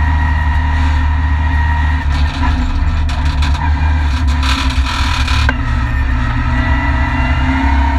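Renault Mégane N4 rally car's engine, heard from inside the cockpit, running hard under load at stage speed, with a brief dip about two seconds in and a short burst of hiss around the middle.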